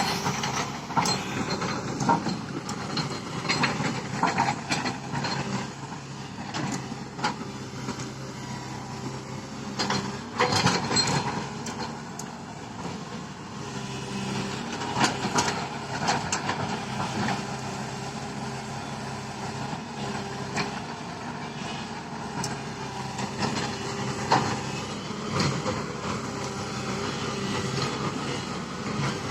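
Tata Hitachi 210 Super Plus excavator's diesel engine running steadily as the machine works, with irregular sharp knocks and clatter scattered throughout.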